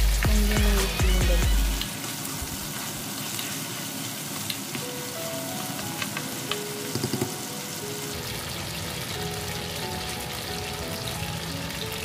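Pork, garlic and onion sizzling in oil in a nonstick frying pan, with a spatula knocking and scraping against the pan, loudest in the first two seconds; after that a steady sizzle with a few light clicks of the spatula.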